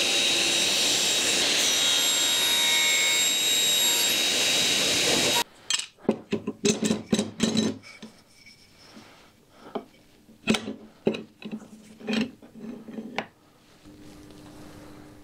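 Circular saw running through a wooden board, stopping abruptly about five seconds in. A string of sharp wooden knocks and clatters follows as the cut pieces are handled.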